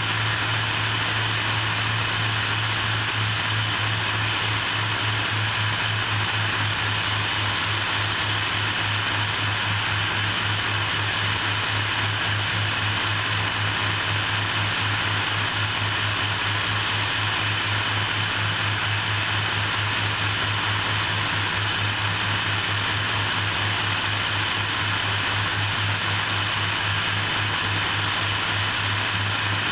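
Twin propellers and turbocharged six-cylinder piston engines of a Cessna T303 Crusader, a steady low drone under a continuous rush of air, holding constant power on approach.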